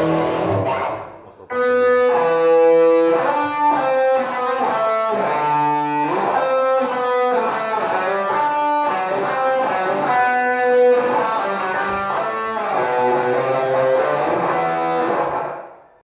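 Cort M200 electric guitar: a chord rings out and dies away, then a melody of sustained single notes is played. It fades out near the end.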